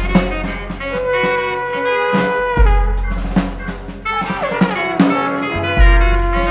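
Instrumental jazz: saxophone and plastic-pipe trumpets holding long notes over a drum kit, with a run of notes sliding downward a little past four seconds in. Deep low thuds land about two and a half seconds in and again near the end.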